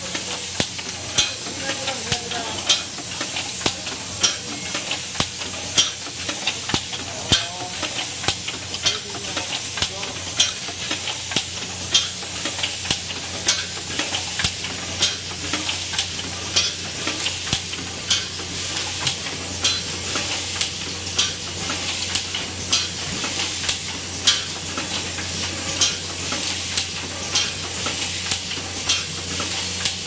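Automatic mascara filling, plugging and capping machine running: a steady hiss over a low hum, with sharp clicks and knocks about once or twice a second from its pneumatic and mechanical stations.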